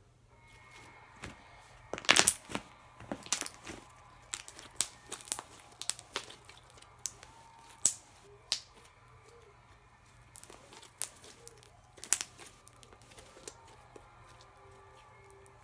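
Homemade slime being stretched and handled, giving off irregular sharp pops and crackles, loudest about two seconds in.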